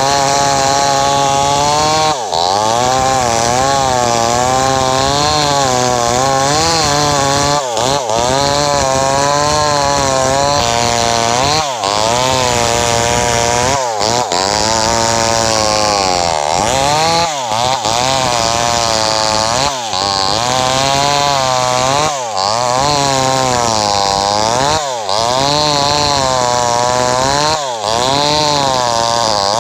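Two-stroke chainsaw cutting lengthwise through wood, running under load with its engine pitch wavering up and down, and brief sharp dips in the sound every two to three seconds.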